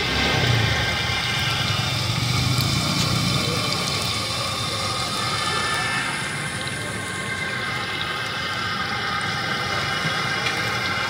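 Pakora batter deep-frying in a large karahi of hot oil: a loud, steady sizzle, flaring up at the start as a handful of batter drops in. A low rumble lies underneath in the first few seconds.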